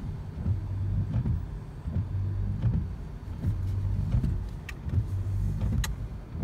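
A car's low, steady engine and road hum heard from inside the cabin, with a couple of faint clicks near the end.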